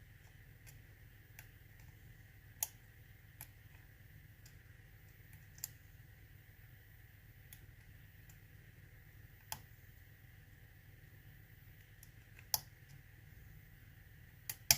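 A lock being picked: sparse, irregular small clicks from the picking tools working inside the lock, with a close pair of louder clicks near the end.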